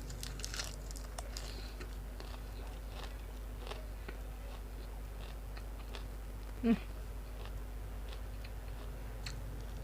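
Close-up eating sounds: soft, scattered mouth clicks and smacks of someone chewing grilled pork salad (moo nam tok) and sticky rice, over a steady low hum. A short low voiced sound about seven seconds in.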